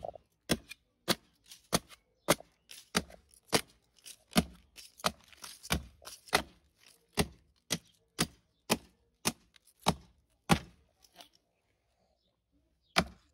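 Restored meat cleaver chopping into a wooden plank: a sharp chop about every half second for roughly eleven seconds. After a short pause comes one last hard chop near the end.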